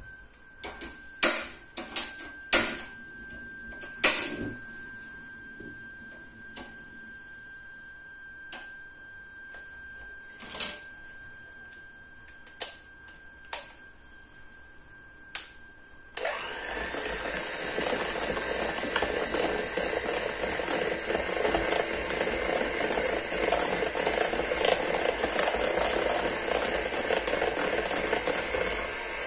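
A dozen or so sharp knocks and clicks as an electric hand mixer and bowl are handled. About halfway through, the mixer switches on suddenly and runs steadily, its beaters whirring through the eggs, flour and milk.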